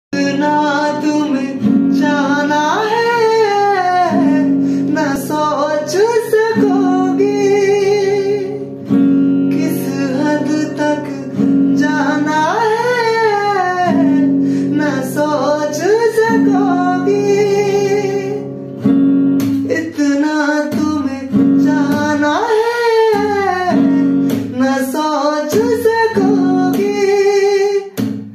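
A man singing a Hindi song to his own strummed acoustic guitar, holding some notes with vibrato over the guitar chords.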